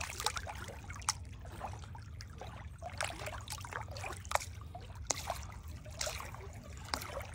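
Shallow lake water trickling and lapping around a hand releasing a bass, with scattered small splashes and drips at irregular moments.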